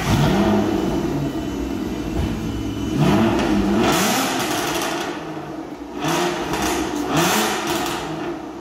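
Aston Martin DB9's V12 engine being revved in a series of short blips, about five, its exhaust note rising and falling each time.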